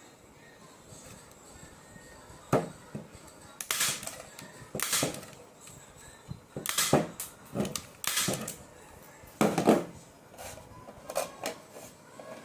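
Irregular clicks, knocks and short scraping sounds of hard objects being handled on a work surface, about ten of them at uneven intervals.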